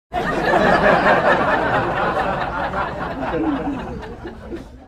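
Canned laughter: a crowd laughing together, starting right after a joke's punchline, slowly fading and then cut off abruptly.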